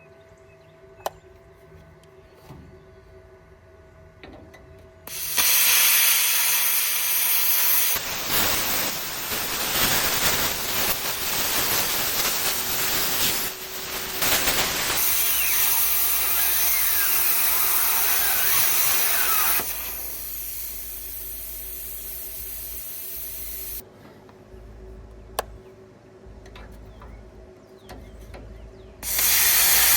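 Budget handheld plasma cutter cutting metal: a loud steady hiss that starts about five seconds in, breaks off and restarts a few times, drops low for several seconds near the end, then starts again.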